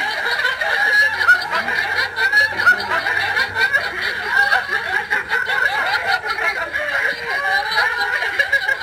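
Several people laughing hard and without pause, a dense stretch of snickering and chuckling.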